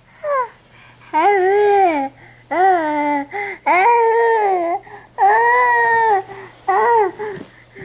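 A baby's voice in a string of about six long, drawn-out high-pitched vocal sounds, each rising and falling in pitch, somewhere between babbling and whiny crying.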